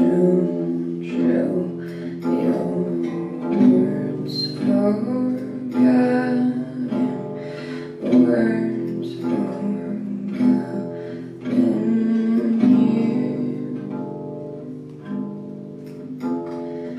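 Music played on guitar: plucked and strummed chords that ring on, with new chords struck every second or two.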